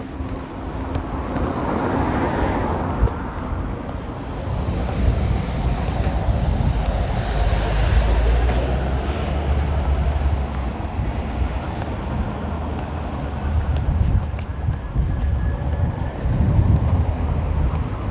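Road traffic going by, with low wind rumble on the microphone; passing vehicles swell about two seconds in and again around eight seconds.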